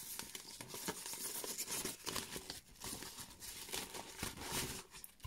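Thin plastic protective wrapping crinkling and rustling as it is handled and pulled off a mini PC, in a continuous run of small crackles.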